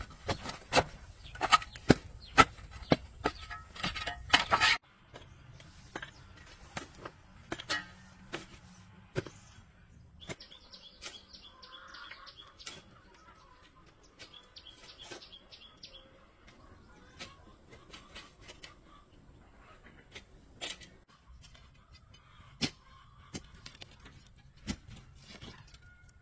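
Irregular sharp knocks and clicks, coming thick and fast for the first five seconds and then only now and then, with short bursts of high bird chirping twice in the middle.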